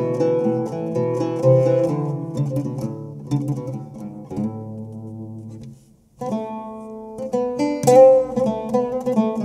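Solo oud played with a plectrum: a melodic run of plucked notes that fades to a brief pause about six seconds in, then resumes more strongly.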